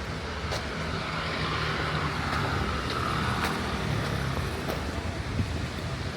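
Road traffic: a vehicle passing, its rushing noise swelling over the first few seconds and then easing, over a steady low hum.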